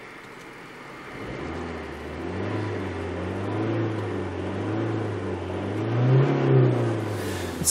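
2006 Renault Megane's engine revved from idle, heard from inside the cabin. It is held around 3000 rpm with the pitch wavering, climbs to a higher peak about six seconds in, then drops back.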